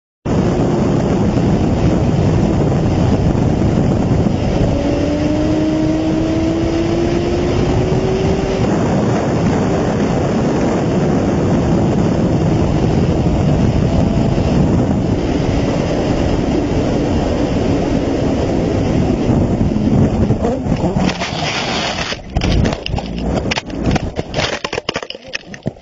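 Motorcycle at speed heard from a helmet-mounted camera: a loud, steady rush of wind and road noise, with a faint engine note rising in pitch a few seconds in. About 22 seconds in, the steady rush breaks into a jumble of knocks and scrapes as the bike crashes and the camera tumbles through dirt and brush.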